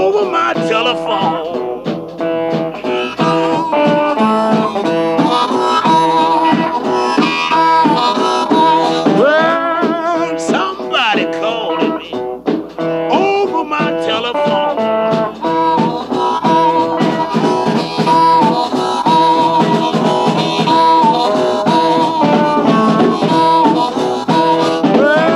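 Blues recording: a harmonica plays with bent notes over guitar accompaniment.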